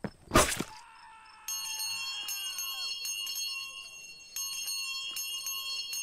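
A sudden short crash, then a bell struck rapidly and over and over, sounding an alarm.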